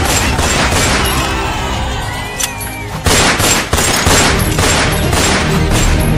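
A rapid string of sharp bangs like a volley of gunfire, with loud music playing underneath. The bangs thin out briefly about two and a half seconds in, then come back louder.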